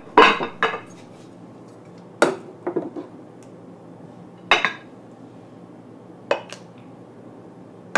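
Steel ladle and ceramic soup bowl clinking against a saucepan as soup is ladled out: several short, sharp clinks at uneven intervals.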